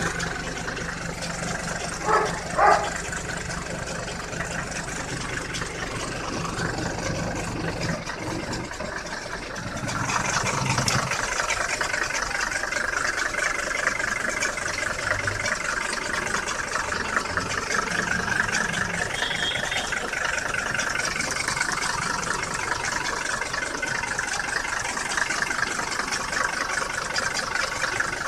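1981 Mercedes-Benz W123's five-cylinder diesel engine (OM617) idling steadily, heard louder and clearer from about ten seconds in. Two brief loud knocks about two seconds in.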